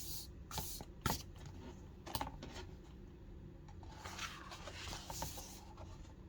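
Pages of a paperboard picture book being handled and turned: faint paper rustling with a few soft clicks, and a longer swish about four seconds in.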